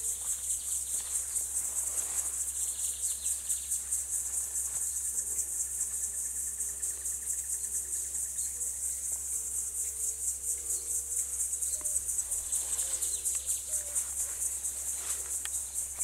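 Insect chorus: a steady, high-pitched, rapidly pulsing drone of insects in riverside vegetation, with faint birdsong in the background.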